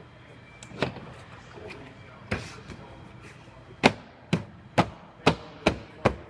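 Sharp knocks, a couple spaced apart and then six in quick succession about half a second apart, something being struck repeatedly while body parts are fitted back onto a car.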